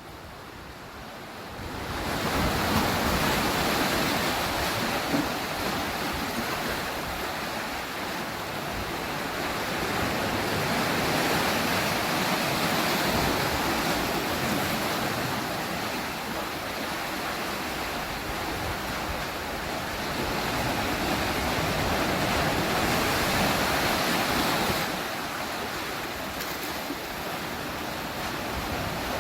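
Sea waves washing onto the shore: a steady rushing hiss that swells up about two seconds in, then ebbs and surges again in long waves, easing off near the end.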